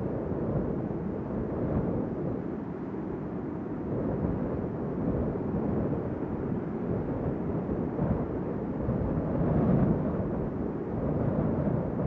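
Strong wind blowing in gusts: a deep, low-pitched rush that swells and eases, with a stronger gust about ten seconds in.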